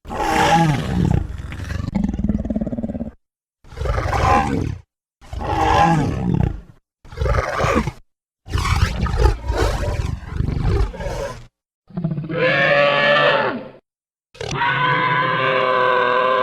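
A run of about seven separate dinosaur roar and growl sound effects, each one to three seconds long with short silences between them; the last two are steadier, more evenly pitched bellows.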